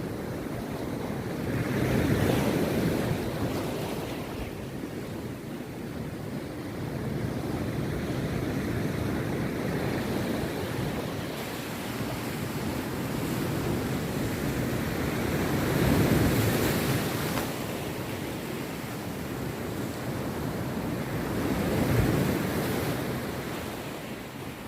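Rough sea surf: waves breaking and washing on the beach, a steady rush with three louder breakers about two seconds in, near sixteen seconds and near twenty-two seconds.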